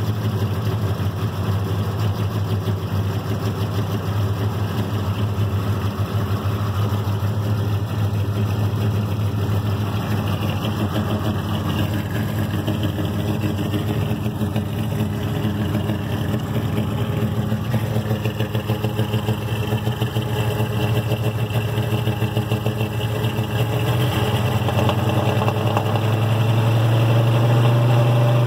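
Carbureted 1978 Chevy C10 350 small-block V8 idling steadily on a cold start. It grows louder over the last few seconds as the tailpipe is approached.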